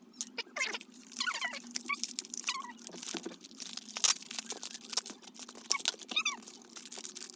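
Cardboard box being opened and foil-wrapped packets handled: crinkling and rustling packaging with scattered clicks and a few short squeaky scrapes.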